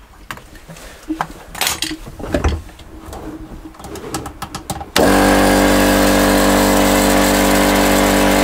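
Clicks and rustles as the coiled air hose and blow gun are handled. About halfway through, an SGS air compressor switches on and runs loudly and steadily, its motor and pump giving an even hum.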